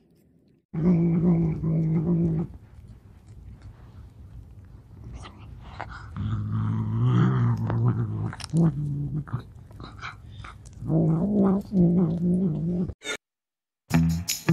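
A domestic cat growling over its food while eating, in three loud bouts with quieter chewing clicks between; the growl of a cat guarding its food.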